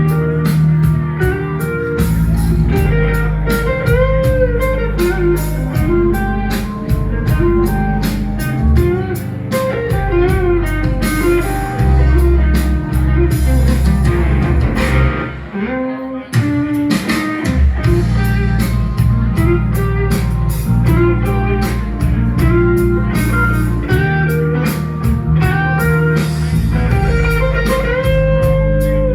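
Live band playing blues-rock: an electric guitar plays lead over bass and a steady beat, easing off briefly about halfway through.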